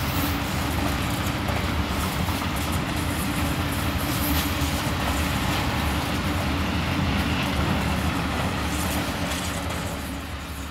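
A train passing close by on its rails: a steady rumble with fine clicking from the wheels, fading away near the end as it recedes.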